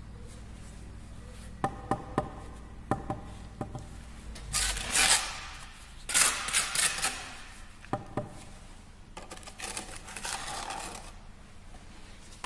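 Bricklaying work: a run of sharp knocks and taps, then two loud bursts of scraping, then a couple more knocks and a softer scrape, from tools working on brick and mortar.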